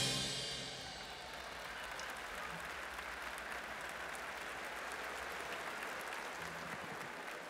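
A large audience applauding steadily, after the band's final chord fades out in the first second.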